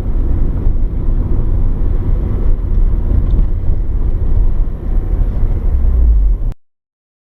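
In-cabin sound of a 2000 Mitsubishi Lancer Evolution 6.5 Tommi Mäkinen Edition, with its turbocharged 4G63 four-cylinder, being driven: a steady low rumble of engine and road noise. It cuts off abruptly about six and a half seconds in.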